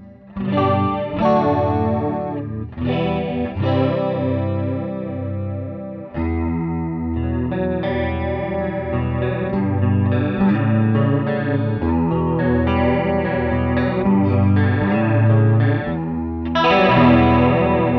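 Electric guitar played through a TC Electronic SCF Gold stereo chorus pedal engaged in chorus mode, giving a shimmering 80s-style chorus. A few strummed chords come first, then a run of picked notes from about six seconds in, and another strong chord near the end.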